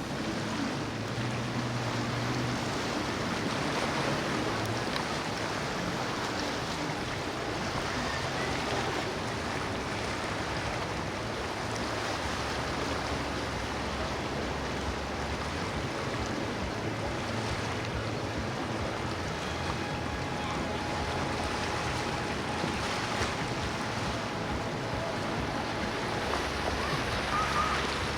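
Water and waves washing steadily, with the low hum of boat engines and wind buffeting the microphone.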